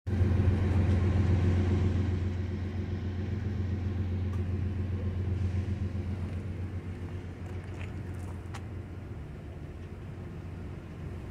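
Low engine rumble with a steady hum, loudest at the start and fading over the first few seconds, with a couple of faint clicks near the end.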